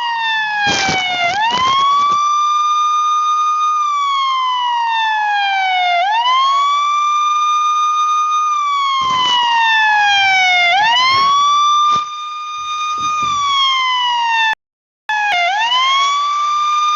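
Police siren wailing: each cycle rises quickly, holds a high pitch for a second or two, then slides slowly back down, repeating about every four to five seconds. A few short clicks sound over it, and it drops out for about half a second near the end.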